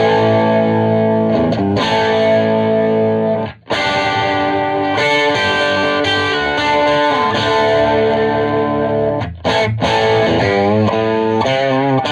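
Distorted electric guitar played loud through a Marshall 2203 tube amp head, a Gibson Les Paul R8: ringing overdriven chords, cut off sharply twice, with wavering bent notes near the end.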